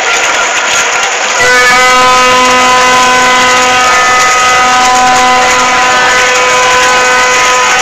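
A loud horn sounds a single steady note, starting about a second and a half in and held unchanging to the end.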